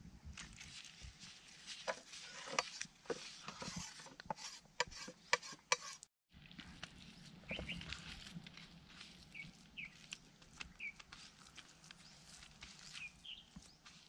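Fingers mixing a spice paste on a banana leaf: a run of small clicks and crackles, broken by a moment of dead silence about six seconds in. After that the mixing is softer, with birds chirping now and then.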